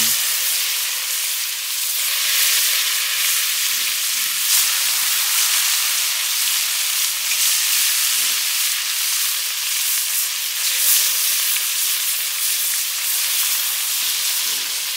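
Fish pieces frying in hot oil in a pan, a steady loud sizzle.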